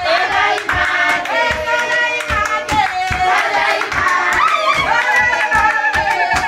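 A group of voices singing together in held, gliding lines over a steady beat of about three strikes a second.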